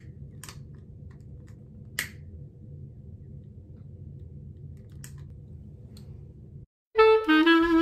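Long-neck candle lighter's trigger clicking a few separate times while being held to a candle wick, the loudest click about two seconds in, over a low steady hum. Near the end the sound cuts out and music starts.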